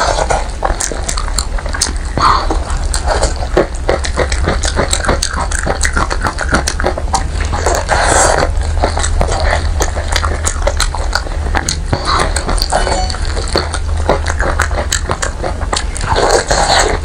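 Close-miked eating: wet chewing, lip smacking and biting into a chunk of saucy, oily meat, with the squelch of sauce-covered plastic gloves pulling the meat apart. A steady low hum runs underneath.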